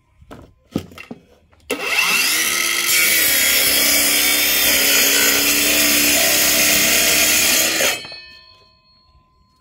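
Nagawa 5.5-inch cordless brushless mini circular saw starting up a little under two seconds in, its pitch rising as it spins up. It cuts through plywood for about six seconds, then stops and spins down. A few light clicks come before it starts.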